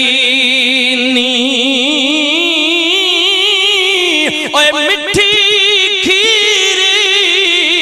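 A man's voice chanting a long melodic line, holding notes with heavy vibrato, the pitch rising over the first few seconds, then carrying on after a few short breaks in the second half.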